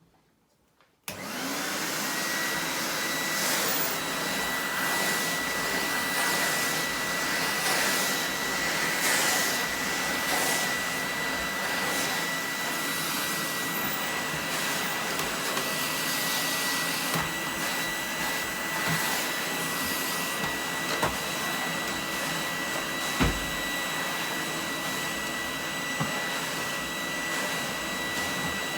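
A 1988 Numatic James JVR225 tub vacuum cleaner with a new old stock 240-volt motor, switched on about a second in and then running steadily with a thin, steady high whine over the rush of air. There is one short thump about two-thirds of the way through.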